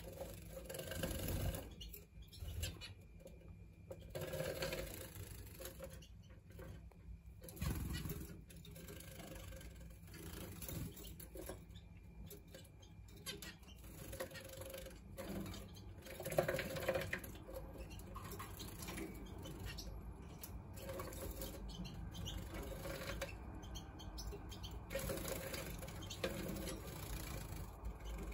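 Finches bathing in a hooded plastic bird bath: bursts of splashing and wing-flapping in shallow water, with droplets pattering against the clear plastic hood, coming and going throughout.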